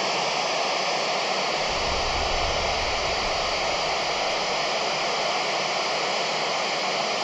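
Steady FM radio static hiss from a handheld 2 m amateur radio receiver while no voice transmission from the International Space Station is coming through, with a faint steady whistle tone underneath.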